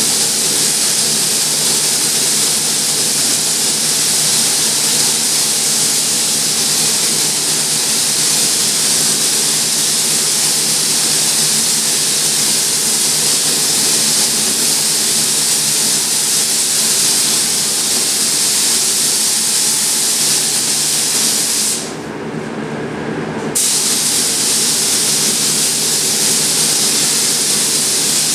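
Compressed-air spray gun hissing steadily as primer is sprayed, over a steady low hum. About 22 s in the hiss stops for a second or two, as when the trigger is let off, then resumes.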